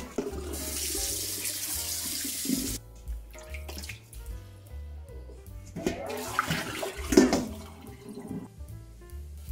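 Kitchen tap water running into a stainless steel bowl of water while raw chicken drumsticks are rinsed and rubbed by hand, with splashing. The tap hisses loudly for about two seconds near the start, and there is another burst of splashing about six seconds in.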